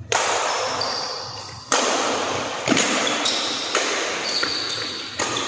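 Badminton rackets striking a shuttlecock in a rally: a series of sharp hits, the first two the loudest, echoing in a large hall.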